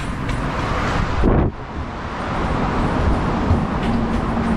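Steady rumble of road traffic with wind buffeting the microphone; a low, steady hum joins near the end.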